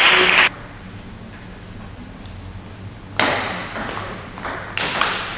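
A burst of crowd noise from the spectators that stops half a second in, another that starts about three seconds in and fades, then sharp clicks of a table tennis ball off bat and table as a rally starts near the end.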